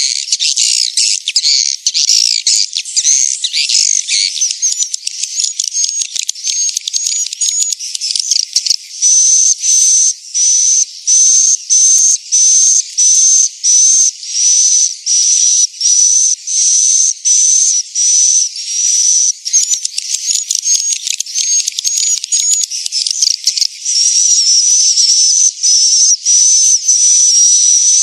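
Edible-nest swiftlet twittering played as a swiftlet-house call-and-roost lure sound, high and shrill. It starts as dense chirping, then from about nine seconds in becomes a rapid trill repeated about once a second with brief breaks, running almost unbroken again near the end.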